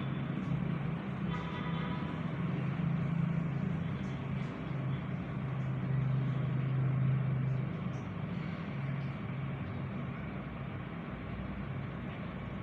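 Road traffic: vehicle engines running with tyre noise, swelling for a few seconds and then easing off about two-thirds of the way through. A brief higher tone sounds about a second and a half in.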